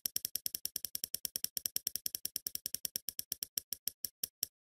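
Spinner wheel ticking as it turns: rapid clicks, about ten a second, spreading out to a few a second near the end as the wheel slows down.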